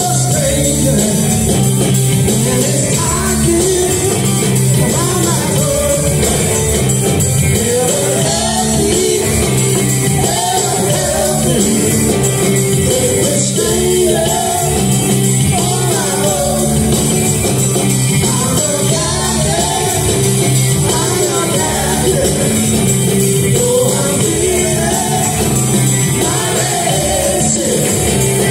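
Live rock band playing a song with a singer's vocals over bass, drums and percussion, recorded from the audience through a phone's microphone.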